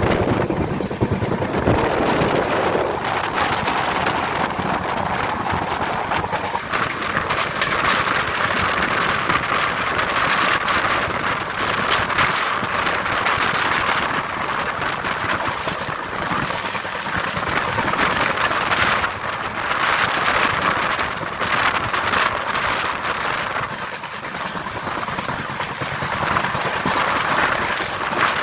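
Express train's passenger coaches running at high speed, heard from an open coach door: a steady rush of wheels on rail and wind, with many brief rattles and clatters through it.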